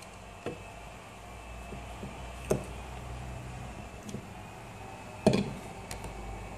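Several knocks and clicks of hard plastic and metal parts of an LED beacon light being handled, the loudest about five seconds in, over a faint steady hum.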